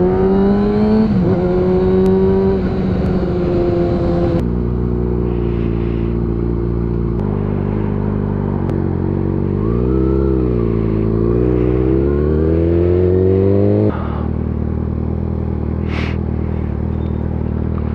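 Kawasaki ZX-6R sport bike's inline-four engine heard from the bike: revving up as it accelerates in the opening seconds, then running at a steadier speed with a dip and a rise in revs about ten seconds in. Near the end it settles to a steady, lower note. The sound changes abruptly twice, at about four and fourteen seconds.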